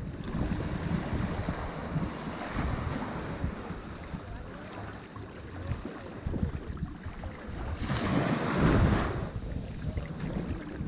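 Ocean waves breaking on a shore, a continuous wash of surf with one wave crashing louder about eight seconds in, and wind rumbling on the microphone.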